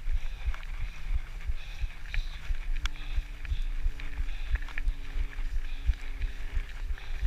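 Mountain bike rolling fast over a loose gravel track: a continuous irregular rattling and thumping of the bike and rider over stones, with sharp clicks of gravel and chain.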